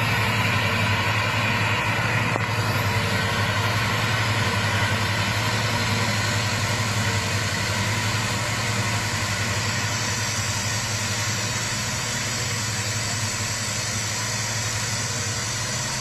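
Yongmeng silage harvester with a 3.5 m header running steadily in the field: a continuous low engine drone under a broad hiss from the machine. It grows slightly fainter in the second half.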